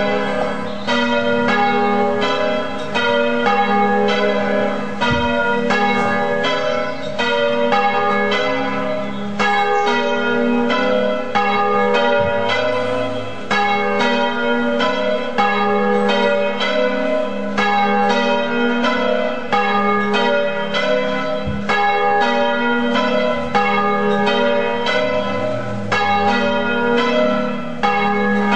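Church bells ringing a continuous peal: strikes at several different pitches follow one another evenly, about two to three a second, each bell ringing on under the next.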